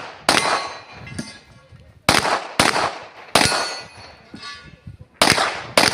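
Six pistol-calibre gunshots at uneven spacing, with a pair close together about two seconds in and another near the end; after several shots comes a metallic ring that fades, typical of steel plate targets being hit.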